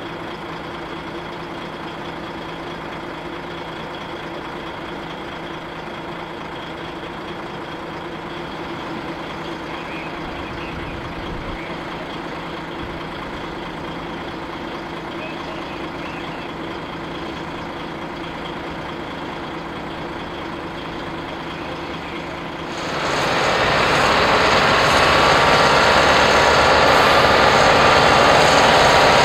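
Heavy-haulage lorry diesel engines running steadily, then becoming much louder about three-quarters of the way through and staying loud.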